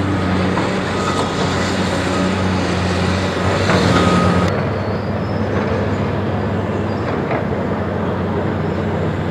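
Hydraulic excavator's diesel engine running steadily, with a thin hydraulic whine and a few knocks of concrete rubble about three and a half to four seconds in, where it is loudest. About four and a half seconds in, the sound cuts to a steadier, duller engine run.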